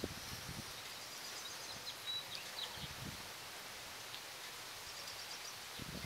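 Steady outdoor background hiss with faint birds chirping: a few quick high notes between about one and three seconds in, and again about five seconds in.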